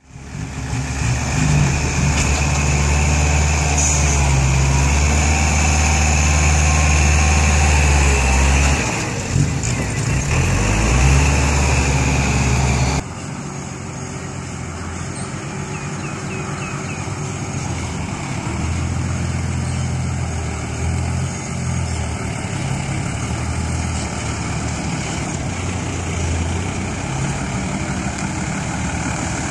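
Mitsubishi Fuso six-wheel dump truck's diesel engine running loudly and steadily. About 13 seconds in the sound changes abruptly, and the engine carries on more quietly, rising and falling as the truck drives slowly over dirt ground.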